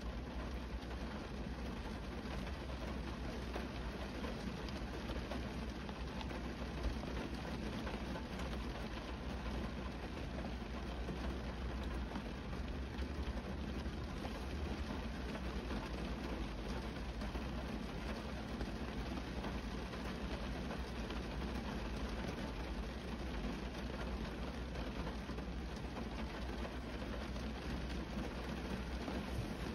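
Rain pattering steadily on a car's windshield and body, heard from inside the car, with a steady low rumble underneath. One louder tap about seven seconds in.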